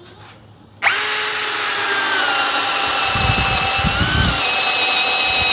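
Yasuka YID318 brushless cordless drill starting up about a second in and running steadily, driving a 25 mm spade bit into a thick meranti board. Its whine dips slightly under load, with low rumbling knocks from the bit biting into the wood for about a second partway through.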